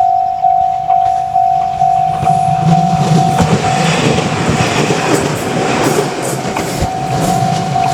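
Japanese level-crossing warning bell ringing steadily, about two strikes a second. A train passes over the crossing from about two and a half seconds in, its wheels rumbling and clacking over the rail joints and partly drowning the bell.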